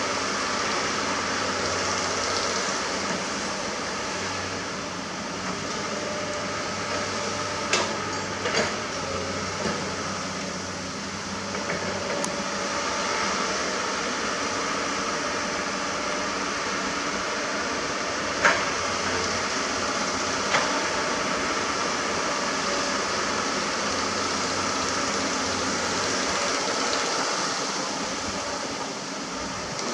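Diesel engines of heavy earthmoving equipment, a dump truck and an excavator, running steadily. A few sharp knocks stand out, two close together about eight seconds in and the loudest about eighteen seconds in.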